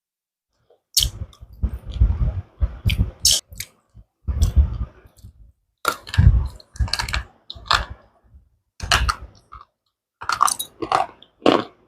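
Slate pencils being bitten and chewed: crisp crunches and cracking in repeated bursts with short pauses, starting about a second in.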